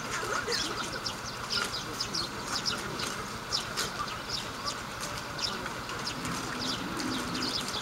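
Many small birds chirping in short, high, falling notes over a background of faint, indistinct crowd chatter.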